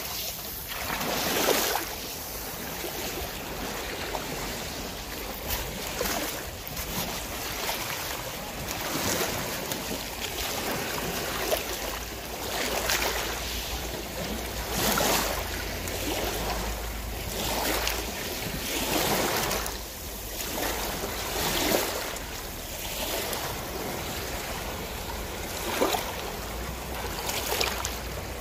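Sea water splashing and washing, with louder surges every couple of seconds over a steady low rumble.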